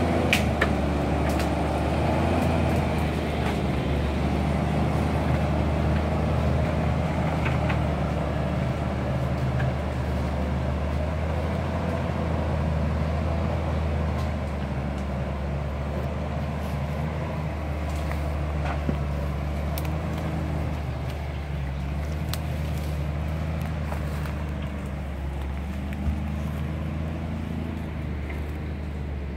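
Diesel engine of a Timberjack forestry forwarder running steadily with a low hum, its note wavering a little in the first few seconds. It grows slightly fainter toward the end.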